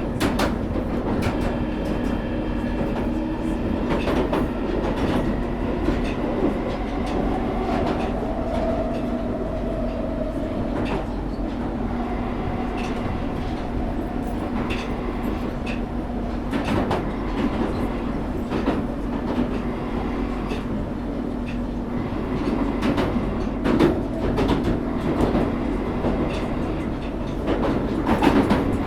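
London Underground Northern line train running through a tunnel between stations, heard from inside the carriage: a steady low rumble with a constant motor hum and irregular clicks and knocks from the wheels on the track.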